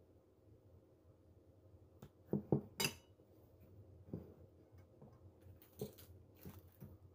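Bowls handled and set down on a table: a quick cluster of clinks and knocks about two and a half seconds in, then a few softer knocks.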